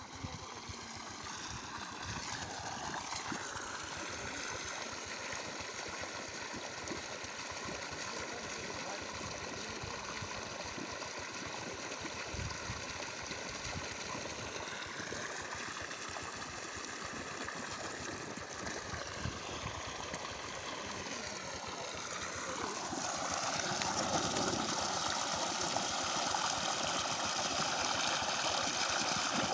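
Water gushing out of the end of a corrugated pump hose and splashing onto soil, with a steady hum underneath. It gets louder about three-quarters of the way through.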